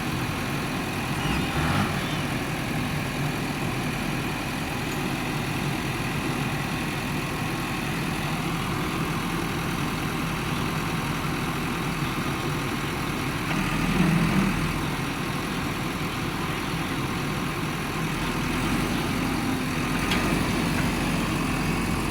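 Heavy diesel machinery engine running steadily at a low, idle-like speed, briefly louder once a little past the middle.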